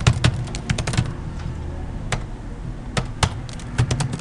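Computer keyboard keys clicking in short runs of keystrokes as text is typed, with a steady low hum underneath.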